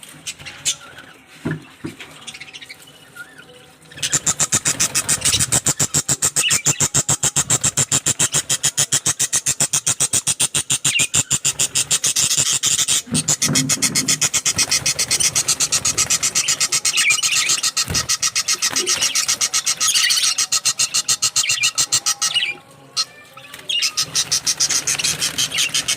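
Cockatiels and budgerigars chirping over a loud, fast, regular pulsing noise. The pulsing starts about four seconds in and drops out briefly near the end.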